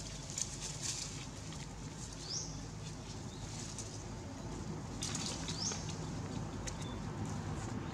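Outdoor ambience: scattered light rustles and crackles of dry leaves, with a short high rising chirp heard twice, about three seconds apart, over steady low background noise.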